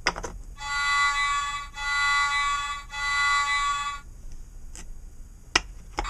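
Electronic vehicle sound effect from a wooden sound puzzle's speaker: a steady pitched, horn-like tone sounding three times, each about a second long, with sharp clicks before and after as the wooden pieces are handled.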